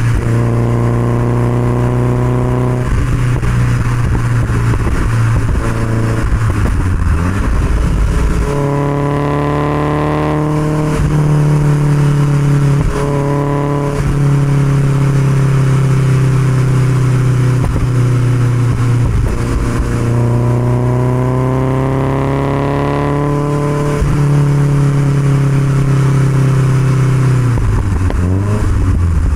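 1969 Alfa Romeo Spider 1750's twin-cam four-cylinder engine running through an Alfaholics aftermarket exhaust at road speed, heard from the open cockpit with wind rushing past. The engine note climbs about a third of the way in, climbs slowly again later, then falls away near the end as the throttle comes off.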